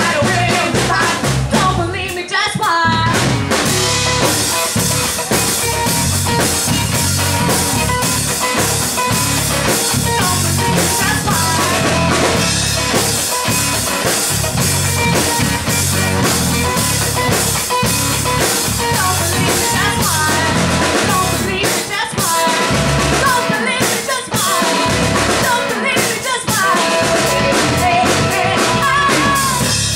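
Live band playing: a woman singing lead into a microphone over electric guitar, bass guitar and a drum kit.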